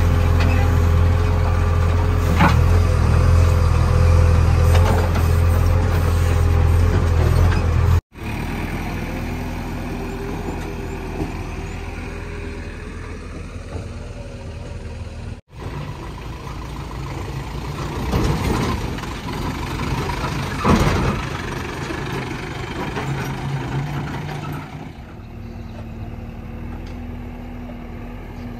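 JCB 3DX backhoe loader's diesel engine running close by with a loud, steady low hum, which cuts off abruptly about eight seconds in. After that, heavy diesel engines run more quietly, with a couple of brief louder surges past the middle.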